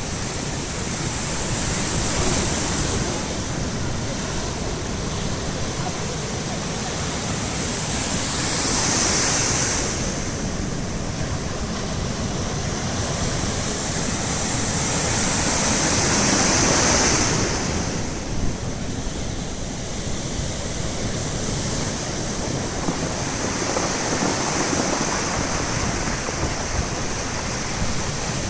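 Baltic Sea surf: waves breaking and washing ashore in a steady rush, swelling with bigger breakers about two, nine and sixteen seconds in, with some wind buffeting the microphone.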